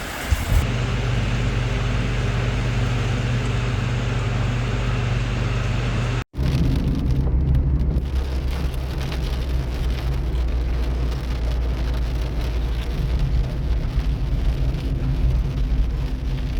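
Heavy rain falling, with a strong steady low rumble underneath and a brief cut to silence about six seconds in.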